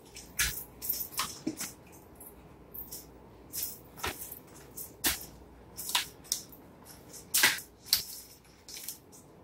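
Plastic wrapping around raw Cornish hens crinkling and crackling as it is handled and pulled open, in short irregular rustles.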